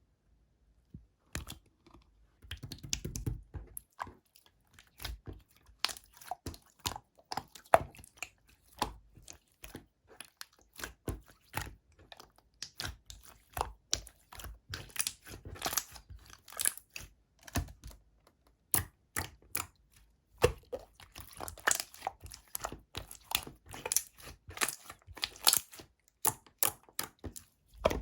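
Clear slime being squished and pressed by hand, making a dense, irregular run of sticky clicks and small pops that starts about a second in.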